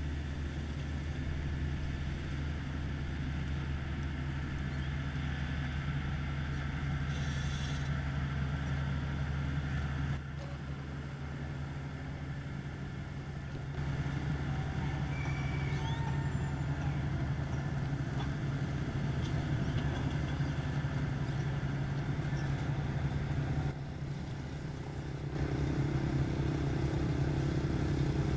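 Komatsu GD555 motor grader's diesel engine running steadily under load while it works aggregate. The level drops abruptly twice, about a third of the way in and again near the end, then returns.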